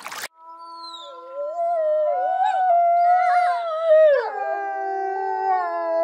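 Several wolves howling together: long, overlapping howls that waver and slide in pitch, with more voices joining after about a second.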